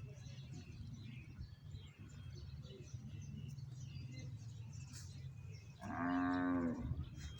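One drawn-out animal call, steady in pitch and about a second long, about six seconds in, over a steady low hum.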